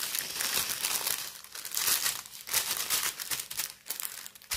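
Clear plastic packaging crinkling and rustling as it is handled, in uneven crackles with brief lulls.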